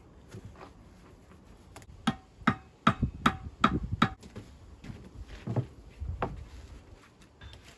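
A run of sharp knocks, like hammer strikes, typical of stonework: about six in quick succession, roughly two or three a second, starting about two seconds in, then a couple of slower, spaced knocks.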